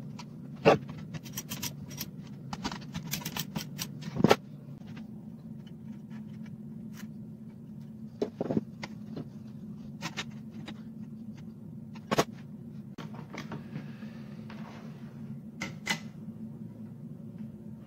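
Metal parts being handled and set down on a workbench: scattered clinks and knocks, the loudest about a second in and about four seconds in, over a steady low hum.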